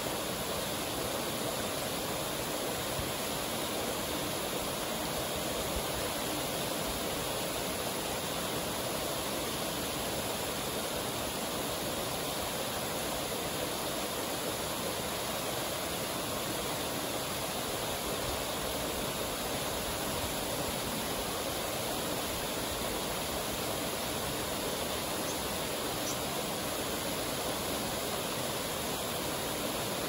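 Waterfall and stream water rushing steadily over rock ledges and into a pool, a constant even wash of sound with no breaks.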